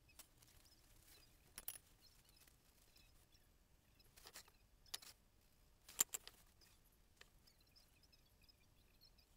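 Near silence broken by a few small, sharp clicks and taps from handling a paintbrush on a paint palette, the loudest a quick pair about six seconds in.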